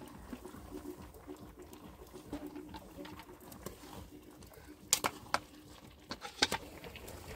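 Scattered light clicks and taps, with a few sharper knocks about five seconds in and again around six and a half seconds.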